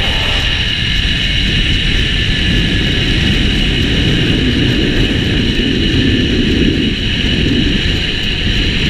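Wind rushing and buffeting on the microphone at zip-line speed, with a steady high whine from the trolley's pulleys running along the steel cable.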